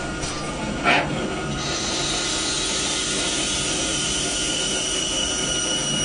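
CNC router cutting wood: a steady high whine over an even rushing hiss, with a brief louder scrape about a second in.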